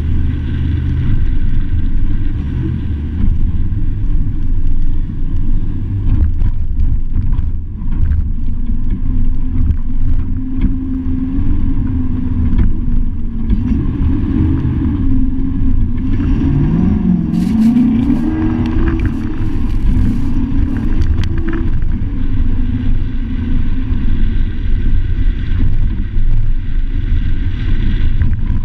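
Off-road truck driving fast on a sandy dirt trail, with a heavy low rumble of road and wind noise. Through the middle the engine note rises and falls as it revs up and down, and a burst of clattering comes just past the middle.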